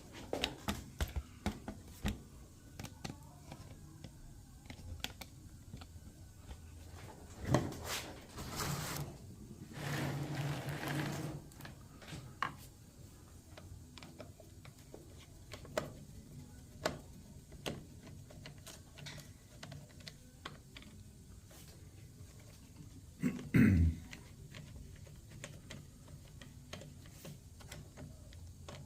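Scattered light clicks and clatter of small tools and carburetor parts being handled, with two brief rushing noises about eight and ten seconds in and a louder knock near the end.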